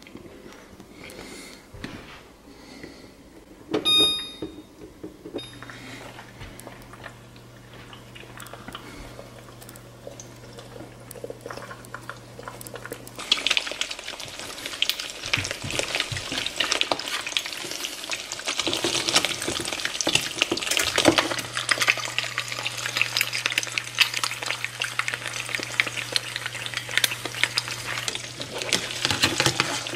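Eggs frying in a nonstick frying pan, a dense crackling sizzle that sets in sharply about 13 seconds in and keeps going. Before that the pan is much quieter, with one sharp metallic clink that rings briefly about 4 seconds in, and a low steady hum at times.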